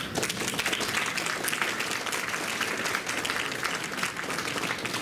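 Audience applauding: steady, dense clapping from many people that starts at once.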